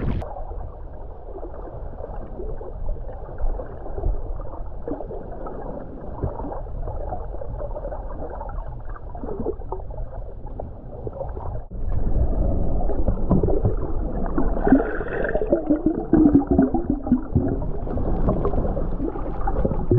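Muffled underwater sound from a submerged camera in shallow seawater: gurgling, sloshing and crackling of water and bubbles. It gets louder suddenly about twelve seconds in, with a few wavering muffled tones a little later.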